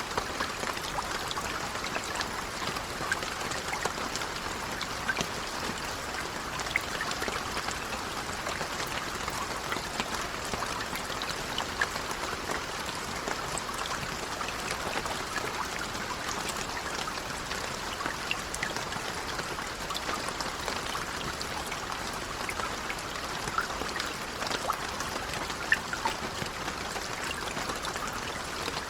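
Steady, gentle rainfall: an even hiss of rain with scattered individual drops striking a surface.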